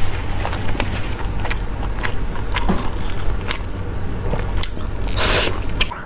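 Close-miked eating sounds: biting and chewing meat off the bone, with many small wet clicks and smacks over a steady low hum, and a louder, noisier stretch a little after five seconds in.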